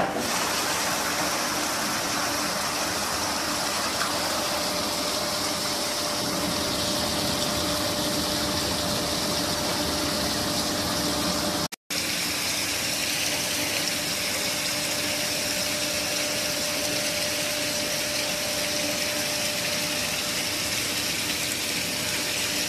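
High-pressure water jet spraying inside an emptied aquarium tank: a steady hiss of spray over a low, even motor hum. It drops out for a split second near the middle.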